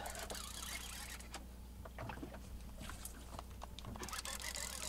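Faint ambience aboard a small boat on open water: a low steady hum and soft hiss, with a few scattered light clicks.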